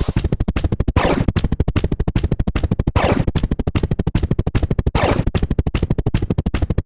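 Rapid electronic clicks, about ten a second, with a short falling sweep about every two seconds: synthetic counting sound effects ticking as the numbers run up.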